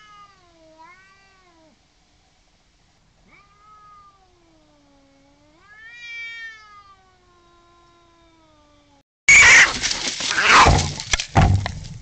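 Two domestic cats yowling at each other in long, wavering caterwauls that rise and fall in pitch. About nine seconds in this breaks into a sudden, much louder, harsh burst of noise as the cats start fighting.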